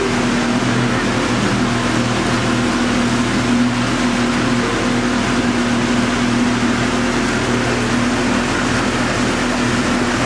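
Boat motor running at a steady speed: a constant, unchanging hum with an even rushing noise over it.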